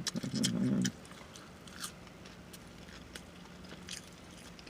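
Close-miked eating sounds: a short vocal sound in the first second, then quiet, scattered wet mouth clicks of chewing and lip-smacking.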